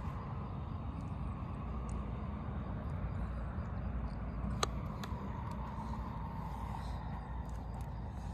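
Outdoor walking ambience on a dirt trail: a steady low rumble and hiss, with one sharp click about halfway through.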